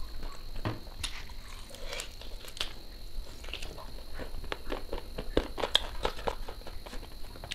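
Close-miked eating by hand: chewing with many short, irregular clicky mouth sounds, along with fingers squishing and mixing rice and curry on a plate.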